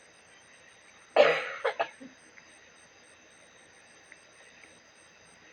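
A person coughing: one loud cough about a second in, then two short ones right after.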